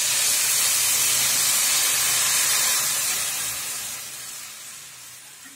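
Milk poured into a hot kadhai of ghee-roasted grated carrots, hissing loudly as it hits the hot pan. The hiss starts suddenly, holds for about three seconds, then dies away as the pan cools.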